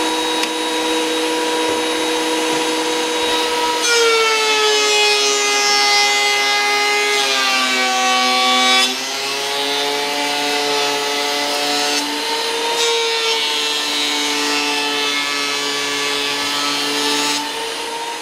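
DeWalt three-knife benchtop thickness planer running with a steady motor whine. About four seconds in a board goes through and the pitch sinks as the cutterhead bites, then recovers when the board clears around nine seconds. A second pass starts about 13 seconds in, and the motor climbs back to its free-running pitch near the end.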